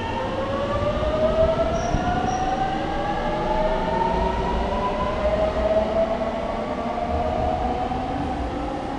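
JR Kyushu 821 series electric train accelerating away: the traction motors whine in several overlapping tones that climb steadily in pitch, over a low rumble of wheels on the rails. Two brief high beeps come about two seconds in.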